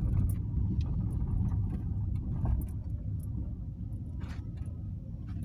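Car's engine and road rumble heard from inside the cabin as it drives along, a steady low drone with faint scattered clicks over it.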